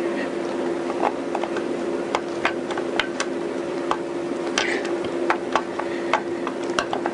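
Irregular light metallic clicks and clinks as parts inside an opened Honda CBR1000F crankcase are handled, among them the chains and loose tensioner pieces. A steady background hum runs underneath.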